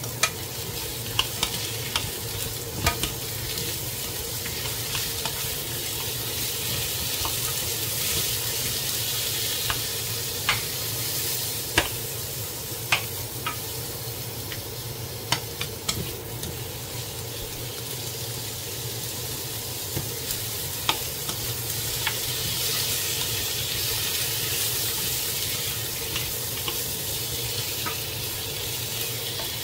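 Sliced zucchini and onion sizzling steadily in a nonstick frying pan while being stir-fried, with wooden utensils clicking against the pan now and then.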